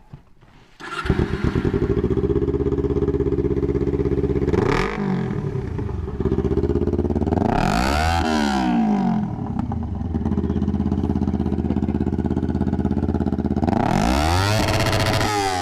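Kawasaki Ninja 250's parallel-twin engine, with no muffler on the exhaust, starting and catching about a second in, then idling. It is revved three times: a short blip, then two longer revs that rise and fall.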